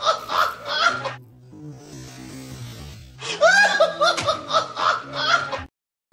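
A person laughing in quick, rapid bursts, the same stretch of laughter heard twice, with quieter music in between; it cuts off suddenly near the end.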